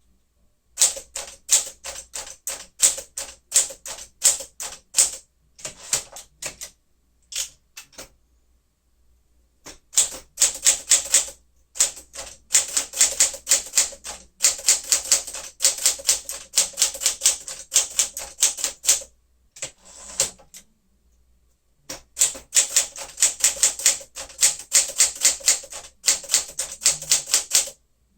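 1959 Smith-Corona Sterling manual typewriter being typed on in fast runs of key strikes, the typebars snapping against the platen several times a second. The runs break off twice for pauses of about two seconds.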